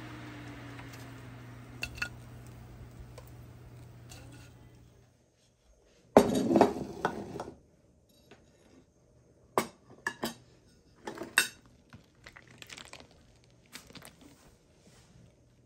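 An electric grill's fan whirs and winds down in a slowly falling tone, with a few light clicks of tongs on the grill, and dies away about five seconds in. Then comes a loud clatter of about a second and a half, followed by scattered clinks of dishes and cutlery.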